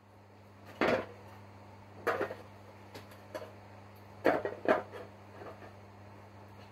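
A steady low electrical hum with three short clattering knocks over it, about a second in, at two seconds and at four and a half seconds.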